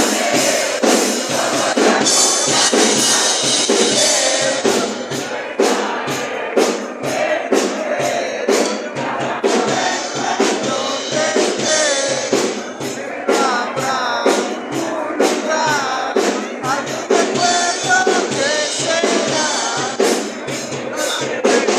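Music with a steady drum-kit beat and a gliding melody line over it.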